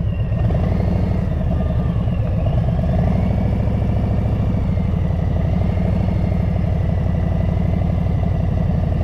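2021 Harley-Davidson Breakout's V-twin engine with aftermarket exhaust pipes, running at a steady low-rpm lope as the bike rolls slowly at walking pace.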